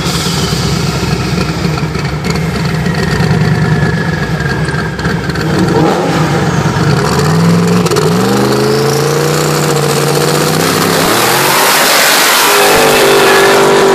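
Two street-race cars, a Cobra and a twin-turbo Camaro, idling and revving side by side, then launching hard about seven seconds in. The engine pitch climbs and drops back several times as they shift up through the gears and pull away.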